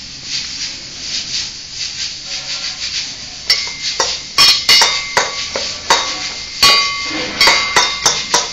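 A steel spoon scraping and stirring around inside a small stainless steel pot, then, from about three and a half seconds in, a run of sharp clinks as the spoon strikes the pot, each one ringing briefly.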